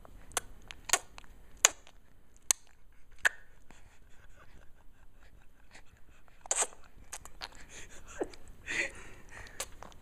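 A baby's mouth clicks: a string of sharp tick-tick sounds made with the tongue and lips, about one a second for the first few seconds and a few more later, typical of a growing baby playing with her mouth. A brief soft voice sound comes near the end.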